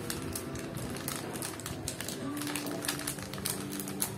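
Hands sprinkling cinnamon powder over cake batter: a quick, irregular run of light clicks and crinkles.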